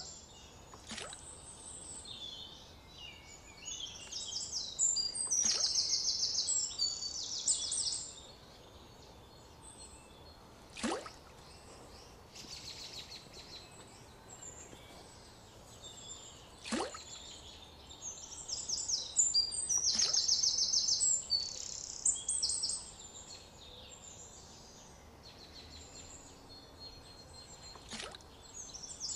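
Birds chirping and trilling in a busy outdoor chorus, loudest in two stretches, with a thin sweep falling quickly from high to low pitch about half a dozen times.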